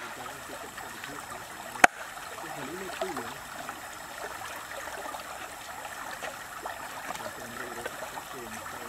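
Shallow stream running steadily over rocks, with one sharp chop of a cleaver through meat onto a wooden chopping board about two seconds in.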